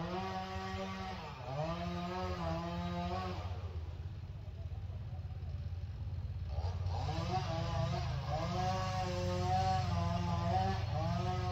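A small engine running and revving, its pitch climbing in steps, dropping back and climbing again several times, over a steady low drone.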